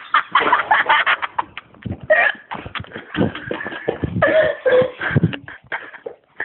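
A man's voice making loud, short, irregular non-word sounds, a quick run of separate bursts with brief gaps between them.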